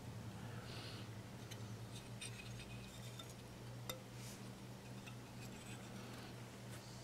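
Faint handling sounds: light ticks and clinks as a porcelain flower is moved and touched, with one sharper click about four seconds in, over a steady low hum.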